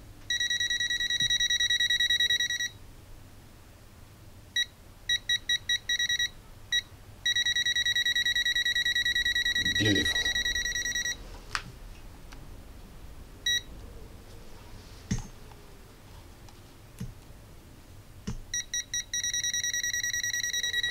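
Aneng M107 multimeter's non-contact voltage detector beeping as it is moved along a live mains cord. The beeper gives a high-pitched tone, sometimes continuous for a few seconds and sometimes broken into quick short beeps as the detected field comes and goes.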